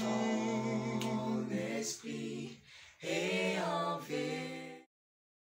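A small group of voices singing a French worship chorus in harmony, holding long notes, with a short breath between phrases about halfway through. The singing cuts off abruptly near the end.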